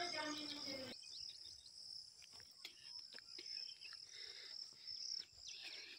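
Faint, steady high-pitched chirring of crickets, with scattered faint ticks.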